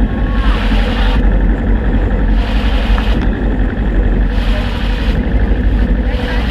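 Suzuki Inazuma GW250's 248 cc parallel-twin engine running at low revs while the motorcycle rolls slowly, a steady low rumble. A hiss swells and fades about every two seconds over it.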